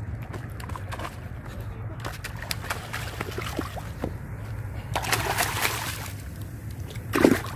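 Water splashing and sloshing with scattered clicks over a steady low rumble, with a louder stretch of splashing about five seconds in and a short loud burst near the end.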